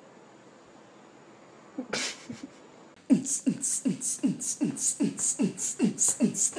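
A fast rhythmic beat, about three strokes a second, each stroke a deep falling thump with a sharp hiss on top, beatbox-like. It starts about three seconds in, after a short burst of sound about two seconds in.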